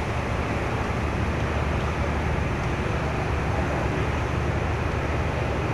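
Steady low hum of a stationary diesel-hauled passenger train's engines running, over an even din.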